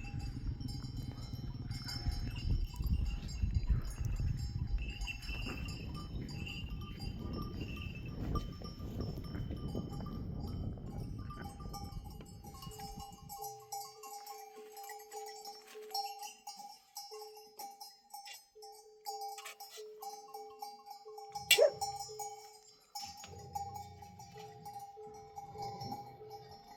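Bells on a grazing flock of sheep clanking and ringing. A low rumble fills the first half and cuts off abruptly, and there is one sharp click about two-thirds of the way through.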